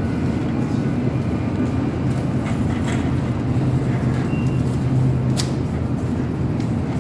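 A steady low rumble with a hum in it, with a few light clicks about three and five and a half seconds in.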